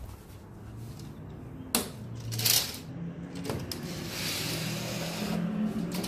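Handling noise as a phone brushes through a sheer fabric curtain: a sharp click, then bursts of fabric rustling against the microphone, over a faint low hum.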